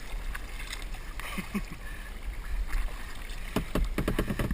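Kayak on open water: a steady low wind rumble on a microphone behind a waterproof cover, with small water sounds against the hull and a quick run of knocks and splashes near the end.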